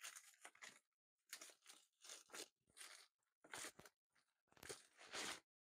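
Packaging being pulled open and rustled as a laptop battery is taken out, heard as about six short, fairly faint scrunching bursts with brief pauses between them.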